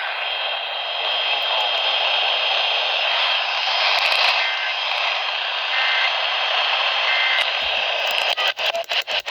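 Steady hiss of radio static from a weak broadcast signal. Three short, faint two-tone beeps sound about a second apart in the middle. Near the end the signal cuts in and out rapidly.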